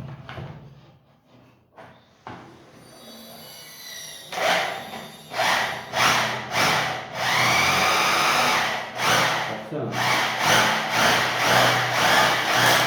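Bosch rotary hammer test-run after repair, switching on about two seconds in and then running loudly in repeated short bursts with one longer continuous run. It had been running without hammering until a worn part was replaced.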